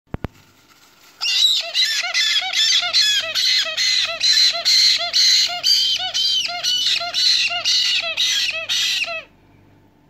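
Black-headed caique chicks giving a fast, regular series of squawking begging calls, about two or three a second, which cut off abruptly near the end: the food-begging response of hand-reared parrot chicks being spoon-fed formula.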